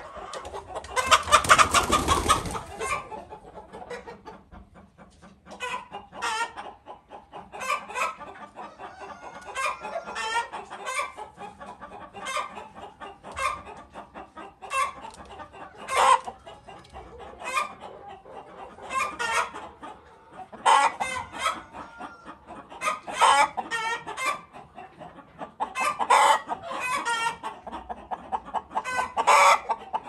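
Domestic hens clucking again and again in short clustered calls, with one loud drawn-out call about a second in.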